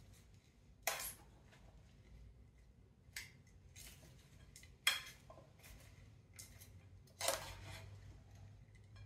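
Salad being tossed with tongs in a glass bowl: quiet rustling of the vegetables with four sharp clicks and clinks of the tongs against the glass, about two seconds apart.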